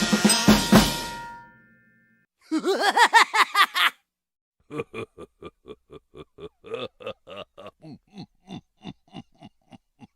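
A string of cartoon sound effects: a drum-kit music sting fades out, then a short run of quickly wobbling pitched tones, then a long series of short plinking notes at about four a second.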